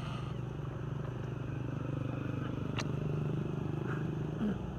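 Steady low hum of a running motor or engine, with a faint click about three seconds in and a brief squeak near the end.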